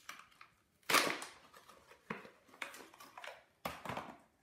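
Plastic toy packaging being torn open and crumpled by hand: a series of sharp, irregular crackles and crinkles, the loudest about a second in.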